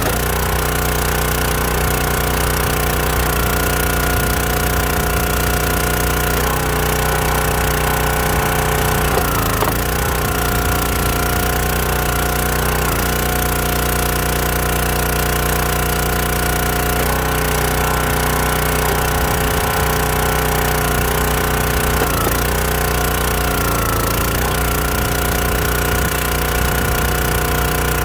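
Countyline 25-ton log splitter's small gas engine running steadily. Its pitch sags briefly about seven times, each sag lasting under a second, as the engine takes load while the hydraulic ram drives logs onto the wedge.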